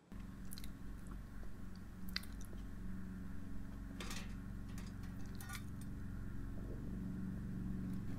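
A steady low machine hum, with scattered light clicks and taps of a steel patch plate being handled and clamped against the rotten bottom of a metal gate.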